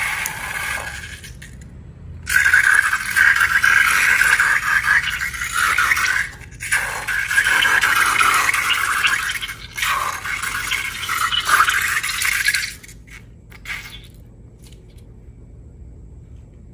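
Dense scraping, crackling noise from slime-making materials being handled, coming in several stretches of a few seconds each with short breaks, then dying away near the end.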